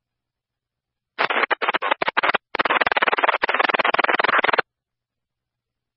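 Burst of radio static on a dispatch radio channel: choppy crackling noise with no intelligible speech, starting about a second in and cutting off after about three and a half seconds.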